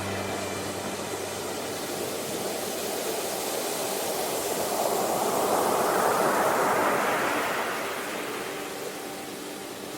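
Ocean surf: a steady wash of sea noise in which a wave builds and breaks about halfway through, then draws back and quietens.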